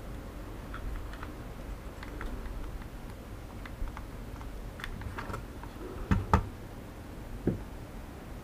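Light clicks and taps of a plastic drone remote controller and its circuit-board connectors being handled. A couple of louder plastic knocks come about six seconds in and another about seven and a half seconds in.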